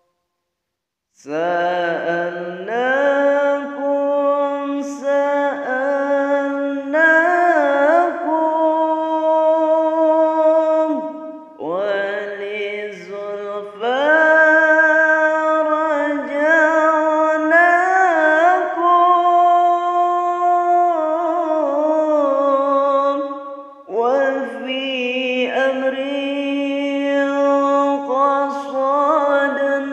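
A man singing an Islamic devotional song in Arabic, unaccompanied, in long drawn-out phrases whose held notes bend and ornament. The singing starts after about a second of silence and breaks for breath about eleven and twenty-three seconds in.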